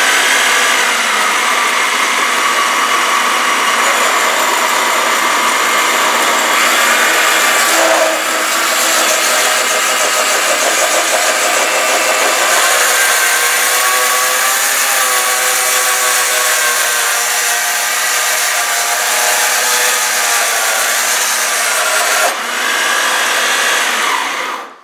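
Woodworking bandsaw converted for metal, with a bimetal blade, cutting through square steel tubing. A loud, steady screech with a wavering whine that changes pitch as the steel is fed in, stopping abruptly near the end as the piece is cut off.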